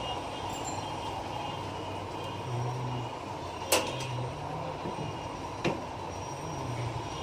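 Steady background hum and noise, broken by two sharp clicks about two seconds apart near the middle.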